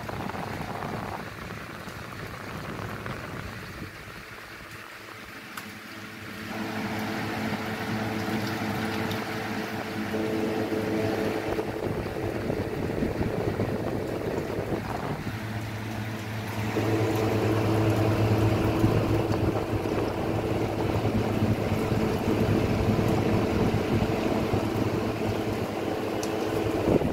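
Water sloshing and splashing as raw mutton pieces are rubbed and rinsed by hand in a steel bowl of water. A steady hum joins in about six seconds in, drops out briefly around the middle and returns.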